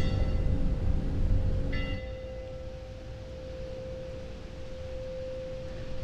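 Ambient soundtrack drone: a steady pure tone held throughout, with two short bell-like chimes, one at the start and another just under two seconds in. A low rumble beneath falls away about two seconds in.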